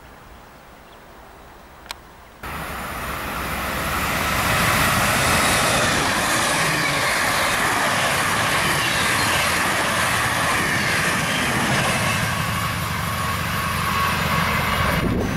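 Electric multiple-unit S-Bahn train passing close by at speed: a loud, steady rush of wheels on rail and air that starts abruptly a couple of seconds in and holds until it cuts off near the end. Before it there is only faint station background with a single click.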